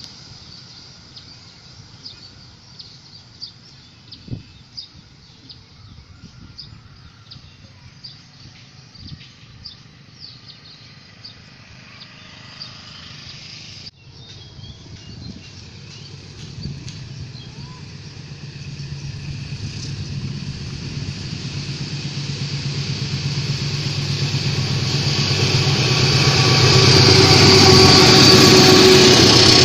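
Quiet outdoor background with short high bird chirps. After a break about halfway in, a diesel locomotive's engine approaches, its steady throb growing louder until it is close and loud near the end.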